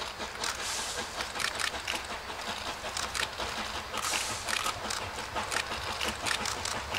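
Distant metre-gauge steam locomotive working hard toward the listener: a run of exhaust beats with bursts of steam hiss.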